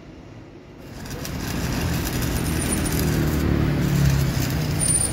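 A motor vehicle passing on a street: a low rumble that swells over about three seconds and peaks near the end, over a steady hiss.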